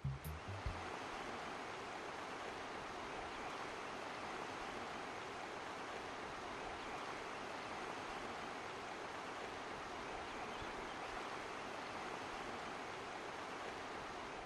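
Steady rushing of a swollen, flooded river: an even, unbroken roar of water.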